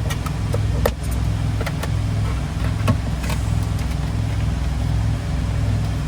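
Semi truck's diesel engine idling with a steady low rumble, and a few sharp clicks of small items being handled, one about a second in and another about three seconds in.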